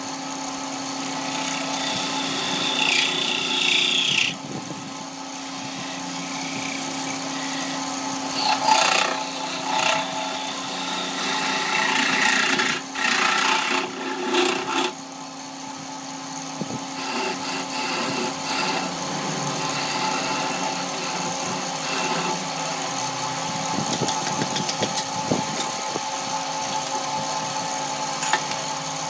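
Electric wood lathe running with a steady motor hum while a hand-held gouge cuts and scrapes the spinning wooden piece in uneven stretches.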